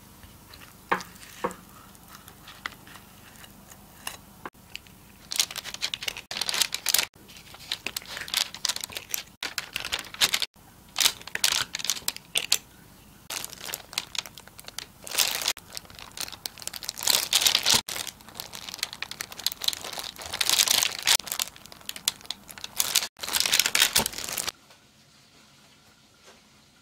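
Clear plastic glove and parchment paper crinkling in repeated bursts as cookie dough balls are pressed and shaped by hand. The crinkling stops abruptly near the end.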